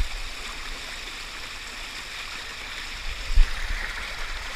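Steady rush of water gushing from a water slide's feed pipe and running down the slide, with one low thump about three and a half seconds in.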